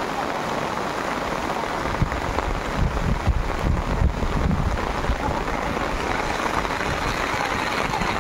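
Heavy monsoon rain falling steadily, a dense even hiss of rain on ground and grass. About two to five seconds in, a low rumble swells under it.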